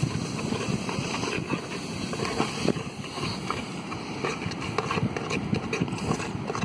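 Wind buffeting the microphone in an uneven low rumble, with many small clicks and taps over it, more of them in the second half.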